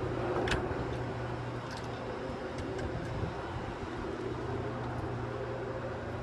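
Steady low mechanical hum with a few faint ticks and clicks.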